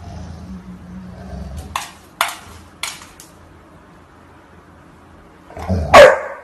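Golden retriever at a mirror: a low rumble at first, then four sharp clicks of its claws on the tile floor as it stands and steps up to the glass. Near the end, one short, loud bark that falls steeply in pitch.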